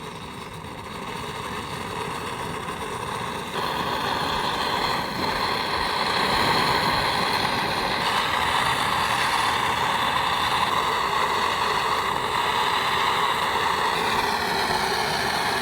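Gas torch flame blowing steadily as it heats a knife blade; it gets louder about three and a half seconds in and then holds steady.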